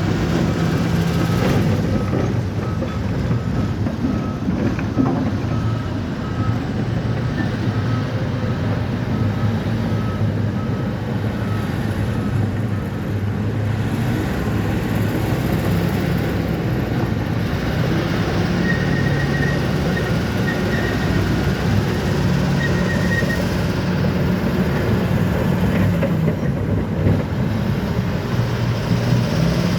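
Bulldozer's diesel engine running steadily, with a reversing alarm beeping repeatedly through the first half and again in short runs later at a higher pitch.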